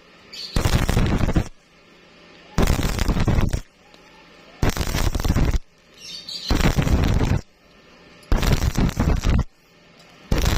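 Stick-welding arc crackling in bursts of about a second, with the arc broken and struck again about every two seconds, five times over. This stop-start rhythm is how a stick welder bridges a wide gap.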